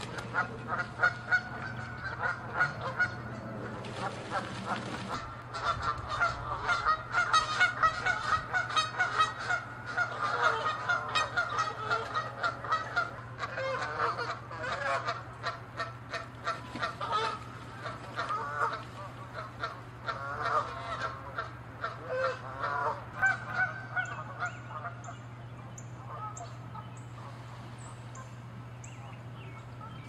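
Canada geese honking loudly and rapidly over one another in a territorial fight, with a brief rush of splashing about four seconds in. The honking thins out to a few calls over the last few seconds.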